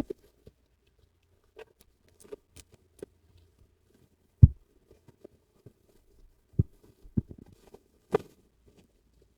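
Unboxing handling noise: scattered light taps and knocks as the box and speaker are moved about, the heaviest a low thud about four and a half seconds in.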